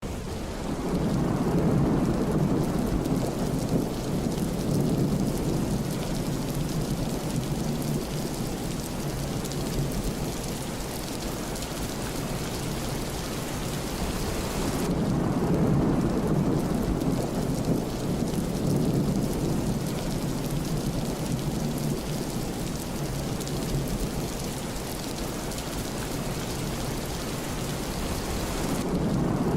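Steady rain with rolling thunder. Low rumbles swell about a second in and again about halfway through, then fade back under the rain.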